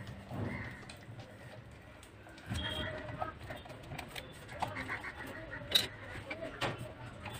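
Metal spatula stirring and scraping epoxy resin and hardener in a plastic tub, with scattered clicks and taps against the tub; the sharpest tap comes about three-quarters of the way through.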